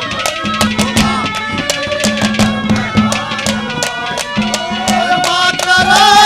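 Haryanvi ragni folk music: rapid, evenly spaced hand-drum strokes under a wavering melody line, with a long held note near the end.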